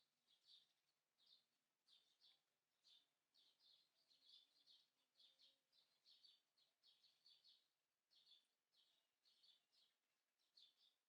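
A small bird chirping steadily, short faint chirps repeating about twice a second.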